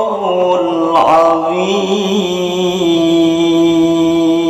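A man's voice chanting in the melodic Quran-recitation (tilawah) style, with ornamented turns in pitch and then one long held note from about three seconds in.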